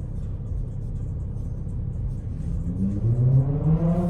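A motor spinning up, its pitch rising steadily over about a second and a half near the end, over a steady low rumble.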